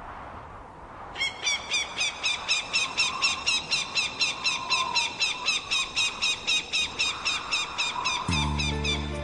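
Rapid, very regular series of short, high-pitched squeaky chirps, about four a second, starting about a second in. Low sustained music comes in near the end.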